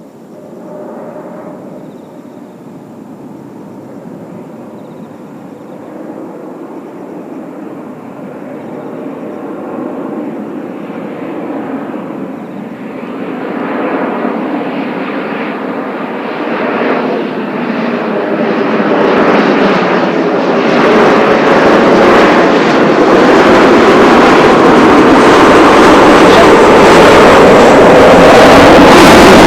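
Jet noise from a formation of four Kawasaki T-4 trainers of the Blue Impulse flying a diamond dirty turn, growing steadily louder throughout as the formation approaches and is loudest near the end.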